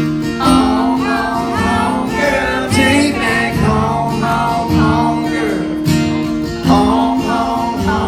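Live band playing a country-pop song, with acoustic guitar strumming under a singing voice.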